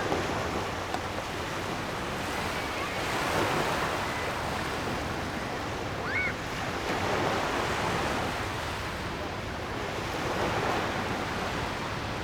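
Surf at a public beach, washing in and out in swells every three or four seconds, with faint voices of people in the background. A short high call rings out about six seconds in.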